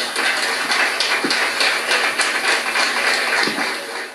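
Audience applauding, a dense, steady patter of many hands clapping that cuts off abruptly at the very end.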